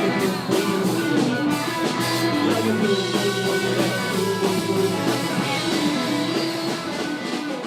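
Rock music: electric guitar with bass and drums, a band playing continuously.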